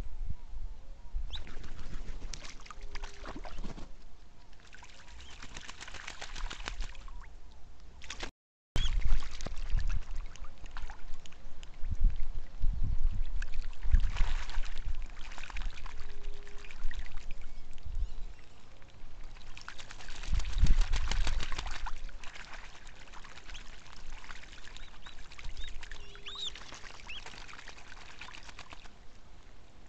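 Ducks bathing in shallow water: irregular splashing and sloshing with some wing-flapping, and a few faint short bird calls.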